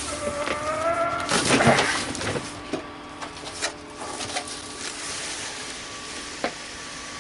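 A cardboard shipping box being opened by hand: a rising squeak about a second long, then a tearing rustle of cardboard, then scattered knocks and rustles as the packing is handled.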